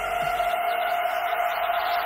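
Background electronic music: a held chord, with one last deep kick drum beat about a quarter second in, then only the chord.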